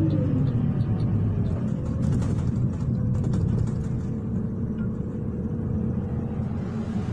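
City bus engine and drivetrain heard from inside the cabin, a steady low rumble; the engine note falls at the start, then holds steady, with faint rattles about two to four seconds in.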